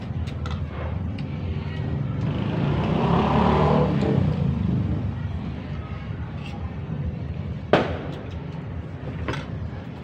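A motor vehicle passes by: its engine builds up over a couple of seconds, peaks about three and a half seconds in, and dies away by about five seconds. Near eight seconds there is a single sharp clink of tableware, with smaller clicks of dishes around it.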